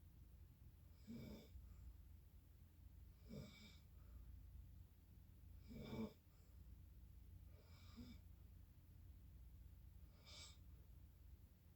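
Faint snoring of a sleeping person: a short snore about every two and a half seconds, five in all, over a steady low hum.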